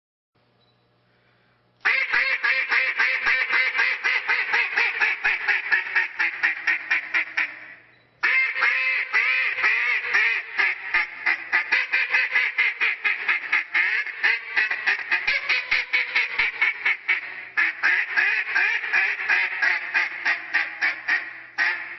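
Hand-blown duck call imitating a live duck: long, fast runs of short quacks, dozens of notes in a row. It starts abruptly about two seconds in and breaks off briefly about eight seconds in before going on.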